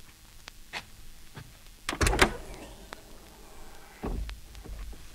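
Lamborghini Countach door sounds played from a vinyl sound-effects record: a few light clicks, then a loud metallic latch clack with a thump about two seconds in, and a heavy thud about four seconds in.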